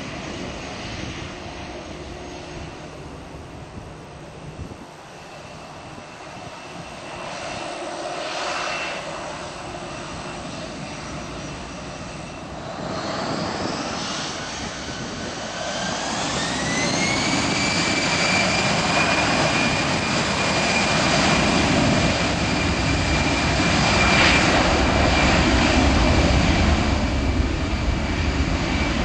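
Airbus A319's CFM56 jet engines spooling up: a whine rises in pitch over about four seconds, about halfway through, then holds steady over a loud, steady jet roar, as when thrust is set for the takeoff roll.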